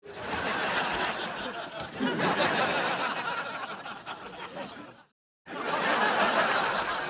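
Canned studio-audience laughter: a laugh track starts abruptly, swells about two seconds in and fades out around five seconds, then after a brief dead gap a second burst of crowd laughter starts.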